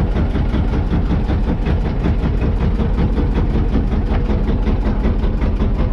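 Hand-cranked inboard engine of a wooden river boat idling with a rapid, even chugging beat.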